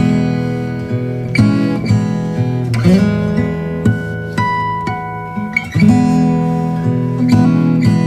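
Background acoustic guitar music, plucked and strummed chords struck about every second and a half.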